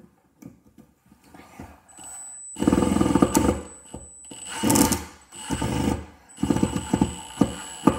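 Milwaukee M18 Fuel impact driver hammering on a long screw in a block of wood, in bursts of rapid impacts. The first burst comes about two and a half seconds in and lasts about a second, and several shorter bursts follow, with a thin high whine running alongside.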